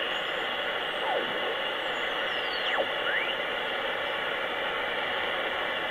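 Sproutie MK II regenerative shortwave receiver tuning across the 40-metre band: steady band hiss, crossed by a few thin whistles that slide down and up in pitch as the dial sweeps past signals.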